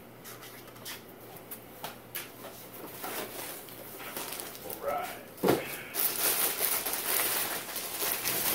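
Cardboard subscription box being opened: light taps and scrapes of the lid, a knock about five and a half seconds in, then loud crinkling of plastic packaging from about six seconds on as wrapped items are handled.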